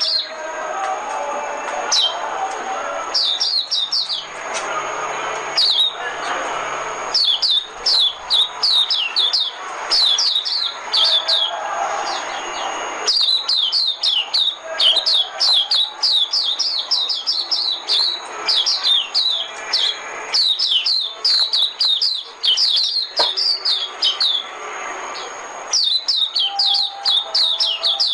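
White-eye (vành khuyên) singing: rapid runs of short, high, downward-slurred chirps in bursts of a few seconds, with brief pauses between them.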